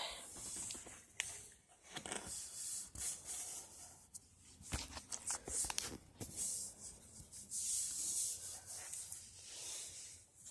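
Handling noise: uneven rubbing and rustling with scattered clicks, like hands moving a plastic package or the recording device.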